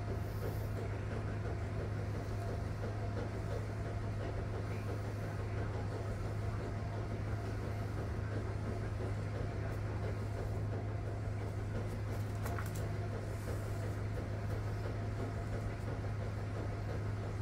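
Steady low hum at an even level, with no change in pitch or loudness.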